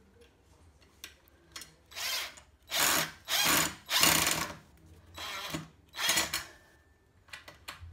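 Cordless drill-driver driving screws through a Venetian-blind bracket into wall plugs, run in about six short bursts of under a second each, the loudest in the middle of the run.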